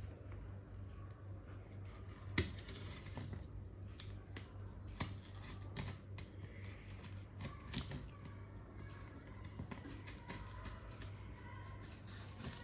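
Parcel packaging being cut and pulled open by hand: scattered faint clicks, snaps and rustles, with one sharper snap about two and a half seconds in.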